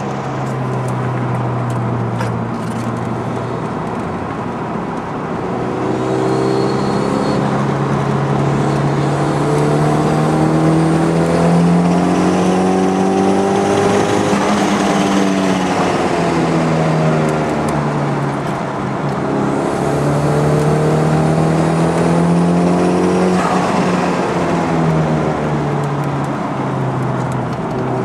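Toyota MR2 Turbo's turbocharged four-cylinder engine, heard from inside the cabin while lapping a race track. Its note climbs under acceleration and drops back at a lift or gear change, twice over.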